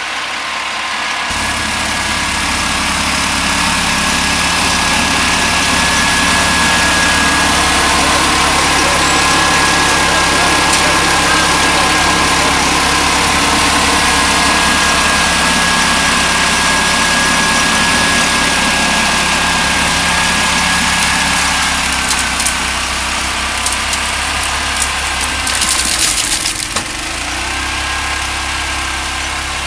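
A Berco snow blower's small petrol engine and its impeller running under load, pushed by a John Deere Gator through heavy, wet snow. A steady engine sound with a whine over it; near the end the whine drops away for a few seconds, the sound becomes uneven, and then the whine returns.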